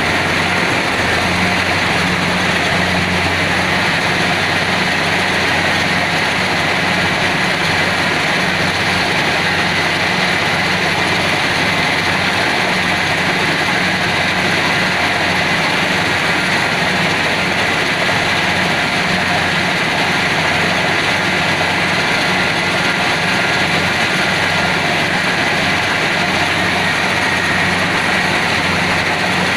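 Kubota DC70 PH+ rice combine harvester running steadily, its diesel engine giving a constant, unchanging drone.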